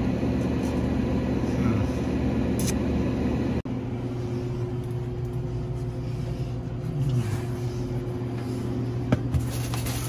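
Steady low machine hum with a constant tone, which breaks off abruptly a little over three and a half seconds in and then carries on. A single sharp knock comes near the end.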